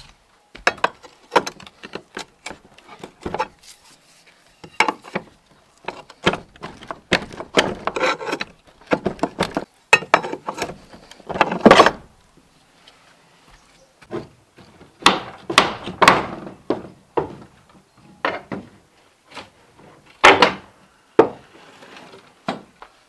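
Wood being handled and worked: irregular knocks, clatters and short scrapes of timber against timber, coming in uneven clusters.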